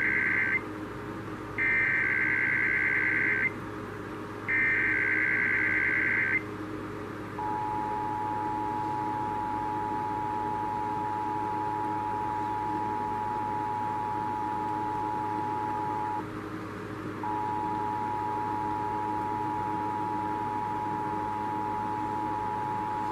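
Emergency Alert System broadcast: the end of one and then two more digital SAME header data bursts, each about two seconds long with short gaps between, followed by the steady two-tone EAS attention signal, which cuts out for about a second partway through and then comes back.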